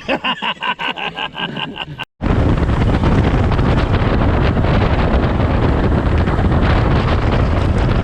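Strong wind buffeting the microphone in a loud, steady rumble, after a brief rapid pulsing tone that repeats several times a second and breaks off about two seconds in.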